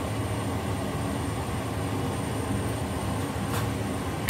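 Steady low rumble of a kitchen extractor fan over a gas stove. A metal spatula gives a light click against the stainless steel frying pan about three and a half seconds in.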